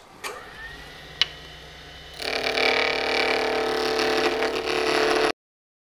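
Wood lathe running, then about two seconds in a gouge starts cutting the corners off a square wooden blank spinning on the lathe: a loud, steady, rough cutting sound as the tool catches the corners on each turn. It cuts off suddenly near the end.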